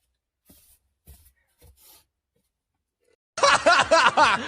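A person laughing: a short burst of about a second near the end, after a few faint soft sounds.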